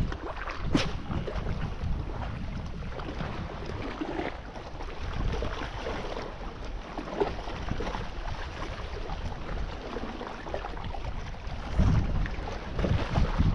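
Wind buffeting the microphone over the wash of the sea, with one sharp click about a second in and heavier gusts near the end.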